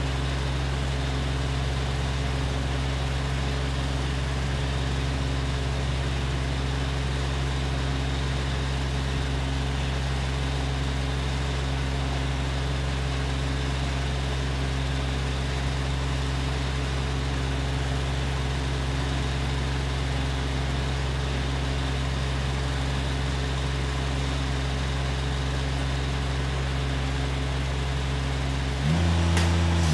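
A steady low hum made of several held tones that does not change. About a second before the end it grows louder and a rising, wailing glide begins.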